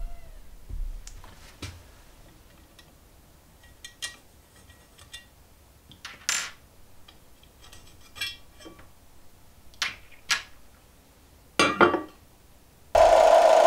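Scattered metal clicks and clinks as the die-cast bucket of a full-metal RC excavator is unpinned and lifted off the arm's linkage by hand, with a louder clatter of metal about 12 s in. The model's electronic engine sound cuts off at the start and starts up again about a second before the end.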